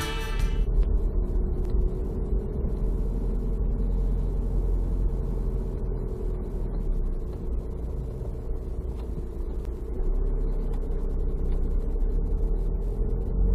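Car driving with a steady low rumble of engine and road noise.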